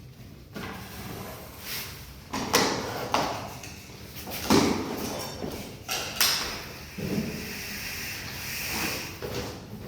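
Irregular knocks, slides and scrapes of hard material being moved and handled, several sharper knocks spread through.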